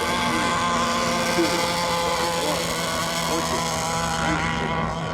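Several radio-controlled racing boat engines running steadily on the water, a high whine made of many held tones.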